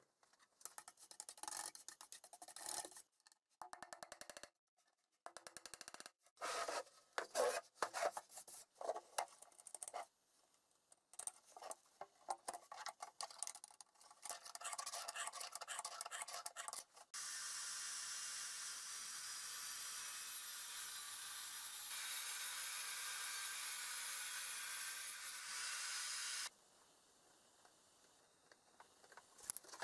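Car scissor jack handled with its crank handle: a run of light metal clicks and rattles. Then a steady rushing noise for about nine seconds that cuts off suddenly, and faint pencil scratching near the end.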